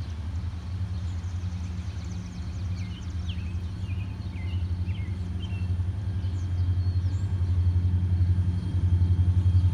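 Deep diesel rumble of an approaching heavy freight train's locomotives (a road slug leading a GP40-2 and two SD40-2s), growing louder over the last few seconds. A few birds chirp briefly in the middle.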